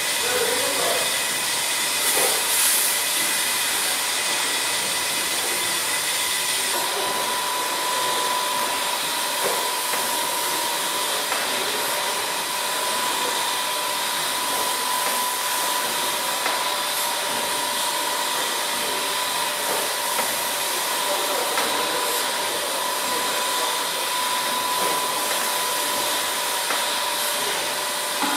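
Steady hiss of steam escaping from the 1895 Worth-McKenzie triple-expansion steam engine. A steady high note joins in about seven seconds in.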